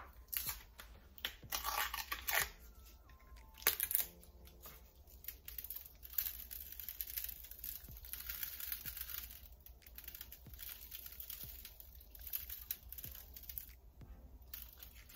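Dry seasoning shaken from a shaker over raw chicken kabobs on a sheet pan: a few sharp rattles and clicks in the first four seconds, then a steady light hiss of granules with small ticks.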